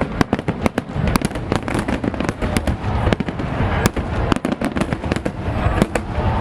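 Fireworks display: a dense run of sharp bangs and crackles, several a second, over a steady low rumble from the bursts.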